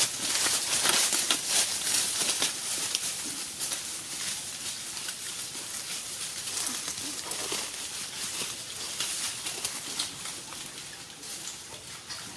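Outdoor ambience: a continuous crackling rustle with fine clicks, and a few faint, short wavering calls.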